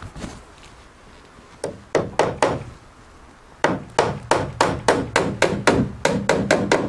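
Hand hammer driving galvanized nails into a wooden 1x2 trim board: four quick blows about a second and a half in, then after a short pause a fast, steady run of blows, about four or five a second, to the end.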